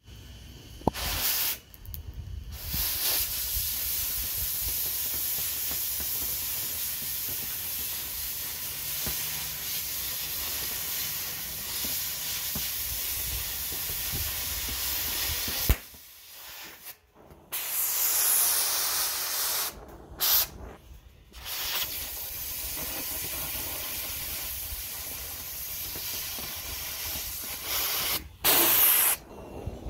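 Oxy-acetylene cutting torch hissing steadily as it cuts along a welded seam between steel tube and plate. It stops abruptly a few times, around the middle and near the end.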